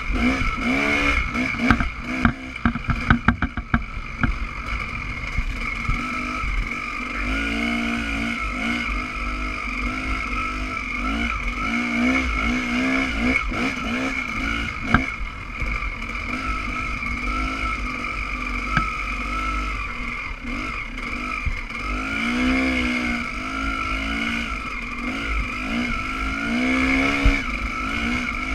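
Dirt bike engine heard from the rider's position, revving up and down as the bike accelerates and backs off along a sandy trail. A burst of sharp knocks and clicks comes a few seconds in.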